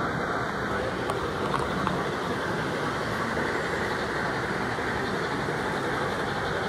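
Model trains running on a large layout: a steady low din with no clear starts or stops.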